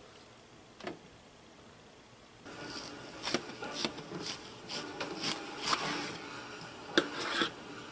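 A knife slicing through a partially frozen venison roast on a cutting board: repeated rasping strokes starting about two and a half seconds in, with a sharp click near the end.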